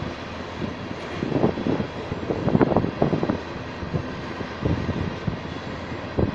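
A freight train of covered hopper cars rolls past with a steady rumble. Groups of wheel clicks and clatter come every second or so as the car trucks pass over the rail joints.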